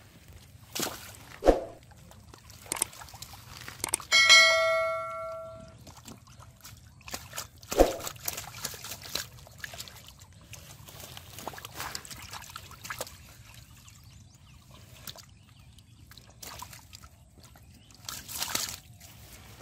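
Hands and a big catfish splashing and sloshing in shallow muddy water, with two heavy slaps a few seconds apart. A single bell-like ding about four seconds in rings for over a second.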